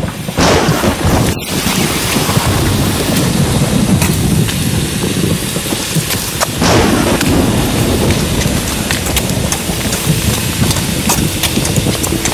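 Heavy rain with thunder: a steady downpour with two thunderclaps, one about half a second in and another near seven seconds.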